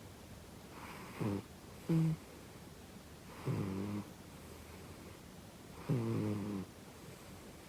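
Domestic cat snoring heavily while awake: four rasping, buzzing snores with the breaths, the last two longer and drawn out.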